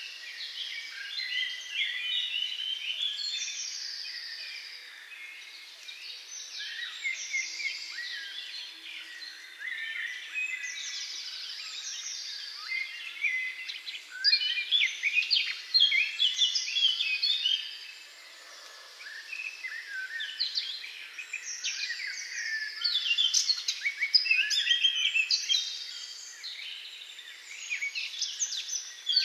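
Several songbirds singing at once, a dense chorus of short, quick phrases, each a second or two long and often falling in pitch, repeated one after another with a brief lull about two-thirds of the way through.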